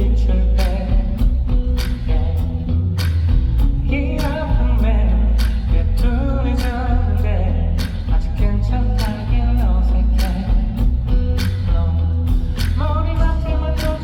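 A live pop-rock band plays with steady heavy bass and regular drum hits under a wavering melodic lead line.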